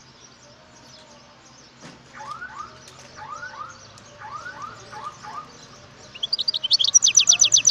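European goldfinch song. After about two seconds, three groups of soft rising notes come, then near the end a loud, fast trill of high descending notes, about ten a second.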